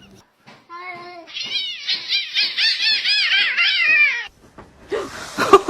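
A cat giving a rapid string of short, high meows, each rising and falling, about three a second for roughly three seconds. A sharp knock follows near the end.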